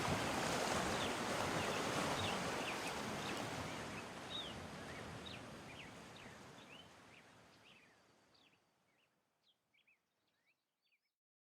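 Ocean surf rushing, fading out over about eight seconds, with a scatter of short high chirps that go on faintly after the surf dies away.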